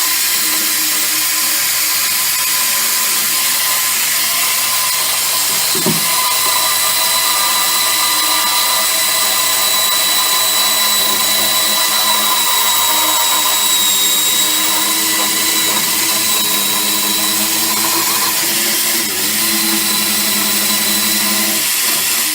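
Handheld electric power tool running continuously, a steady motor whine over a rough grinding hiss, with one short knock about six seconds in. It stops at the very end.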